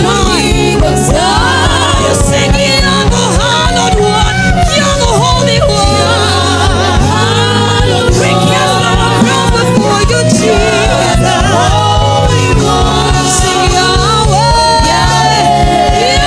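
Gospel praise music: voices singing ornamented, gliding melodic runs over band accompaniment with a steady bass line.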